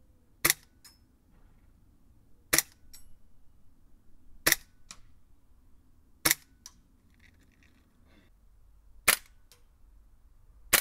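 KJW KC-02 CO2 gas blowback airsoft rifle firing six single shots, about two seconds apart. Each shot is a sharp crack, mostly the bolt assembly cycling, and is followed shortly after by a faint tick.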